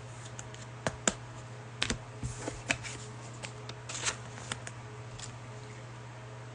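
Mosaic basketball trading cards being handled and slid against each other: a scattering of short clicks and rustles over a steady low hum.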